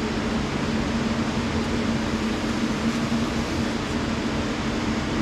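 Steady machine hum with a constant low drone and an even rush of fan-like noise from running lab equipment, without change or sudden events.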